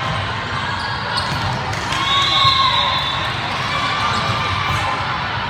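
Echoing voices of volleyball players and spectators calling out in a large gym during a rally, with one louder call about two seconds in, and the thuds of the volleyball being served and played.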